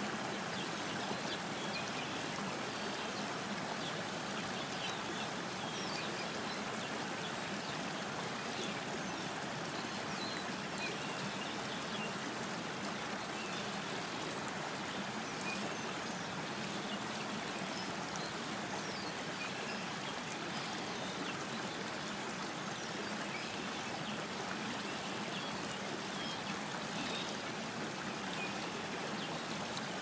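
Shallow stream running over a pebble bed: a steady trickle and burble with many small, quick plinks of water throughout.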